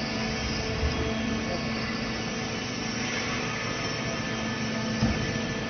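Hydraulic straw baling press running: a steady hum from its motor and pump, with one knock about five seconds in.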